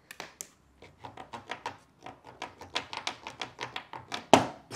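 A quick run of light clicks and taps, about four or five a second, with one louder knock near the end, as plastic packers are worked out from under an aluminium bifold door frame.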